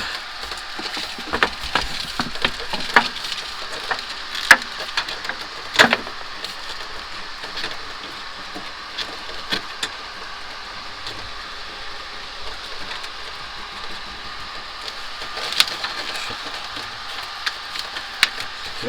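Scattered clicks and knocks of hands handling and fitting air-conditioner piping, over a steady background hiss.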